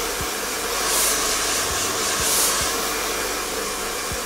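Handheld electric hair dryer running steadily, blowing on hair, its airy hiss swelling twice as it is moved around the head.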